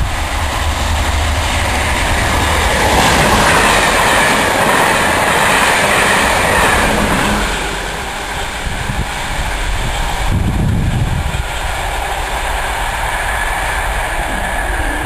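A pair of Class 37 diesel locomotives, with their English Electric V12 engines, haul the overhead-line test train past at speed. The leading engine's drone and the wheel-and-rail noise of the coaches peak about three to seven seconds in. The trailing locomotive's engine surges past about ten seconds in.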